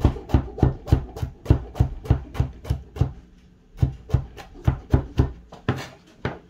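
Chef's knife chopping garlic cloves on a plastic cutting board: quick, even knocks about three a second, with a short pause about halfway through before the chopping goes on.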